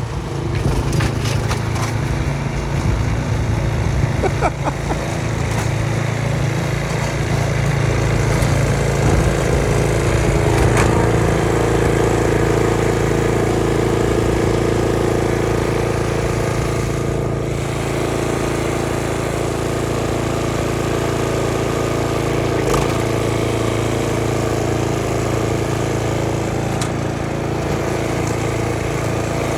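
A small engine running steadily throughout, with a few brief knocks.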